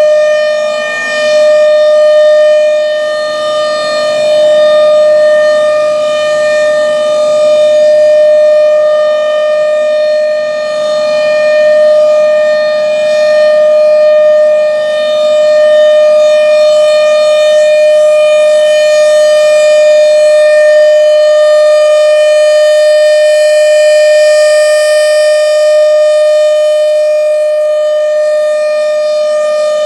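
Federal Signal Thunderbolt 1000 outdoor warning siren sounding a loud, steady-pitched tone during a routine test. The sound swells and fades every few seconds as the siren head rotates.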